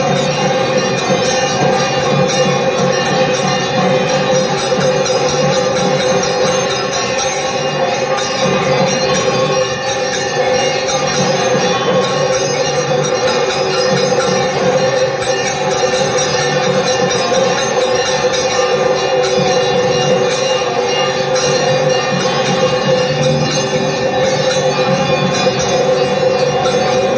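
Temple puja music: bells ringing continuously and rapidly over a steady held drone, unbroken throughout.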